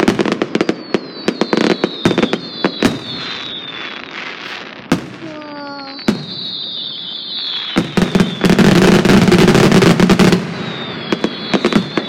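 Fireworks going off close by: sharp bangs and crackling, with several high whistles that fall in pitch. A dense burst of crackling starts about eight seconds in and lasts about two seconds.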